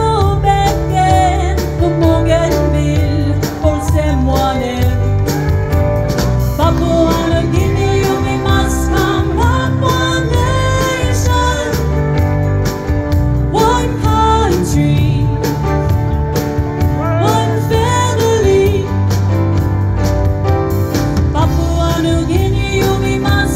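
Live band playing a Papua New Guinean pop song: a lead vocal sung over electric bass guitar and keyboard, with a steady beat.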